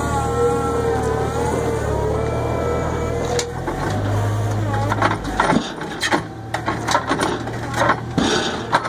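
Battery-powered Sherpa mini loader whining as its lift arm moves, with the pitch shifting, over a steady low hum. From about three and a half seconds in, a run of knocks, scrapes and clatters as the concrete slab is tipped off the forks into the steel bed of a dump truck.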